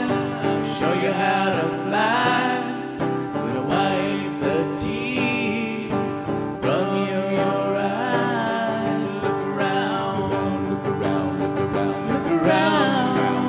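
A song: a voice singing with wavering pitch over a steady instrumental backing.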